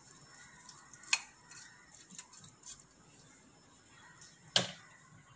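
A cooking utensil knocking and scraping against the ceramic crock of a slow cooker as beef chunks are stirred: sharp clicks, two louder ones about a second in and near the end, with lighter taps between.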